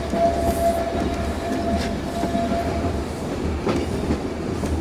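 Carriages of the Furka steam railway rolling along the track: a steady low rumble with rattling of wheels and running gear. A thin, steady squeal of the wheels on the curve runs for about the first three seconds, and there is a single knock near the end.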